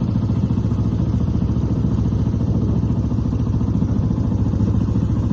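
An engine running steadily at an even speed, with a fast, regular pulsing and no change in pitch.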